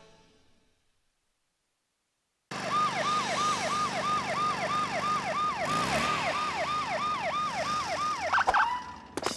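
After about two and a half seconds of silence, a cartoon police car siren wails in a fast repeating pattern of quick sweeps, about three a second. It changes to a short held tone and stops just before the end.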